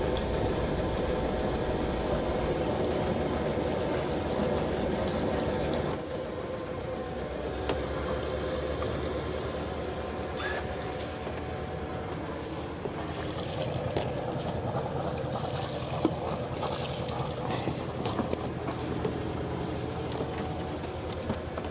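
Sailing yacht's inboard engine running steadily at low speed while manoeuvring, with a few short knocks and clicks of gear on deck in the second half.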